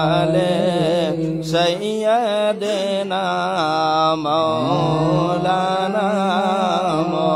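A man's voice chanting devotional verse in long, ornamented notes that waver and slide in pitch, with a couple of brief breaks for breath.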